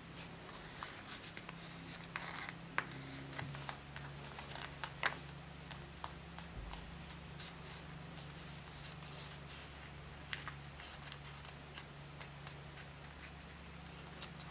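Sheet of origami paper rustling and crinkling as fingers fold and crease it, in scattered soft crackles and sharper ticks, over a low steady hum.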